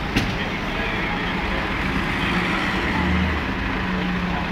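Street traffic noise with a car engine running close by, strongest about three seconds in, and a single sharp click just after the start.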